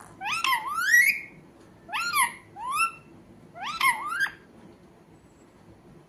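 Rose-ringed (Indian ringneck) parakeet speaking in its mimicking voice: three short, high-pitched phrases with rising swoops in the first four seconds or so.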